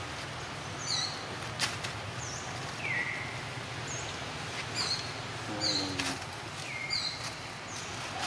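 Short, high-pitched chirps repeating about once a second over a steady outdoor background, with a lower falling call a little past the middle and a couple of sharp clicks.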